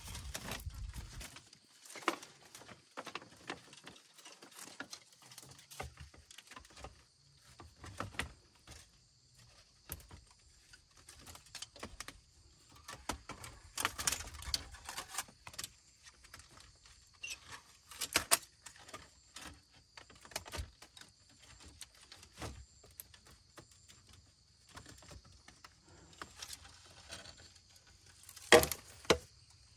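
Scattered light knocks, clicks and clatter of hand work, irregular and unevenly loud, over a faint steady high-pitched drone.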